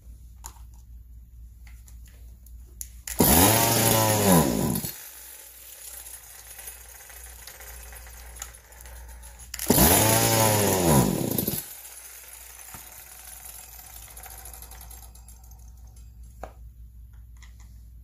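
Homelite chainsaw's two-stroke engine firing twice. Each time it catches, revs up for about a second and a half, then winds down and dies out.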